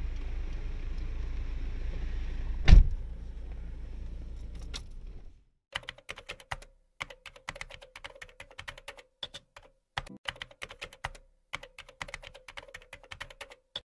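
A car engine running with a steady low hum inside the cabin, with the motor sounding wrong, and one loud thump about three seconds in. After an abrupt cut, a rapid run of typewriter-style keyboard clicks, a typing sound effect, goes on to the end.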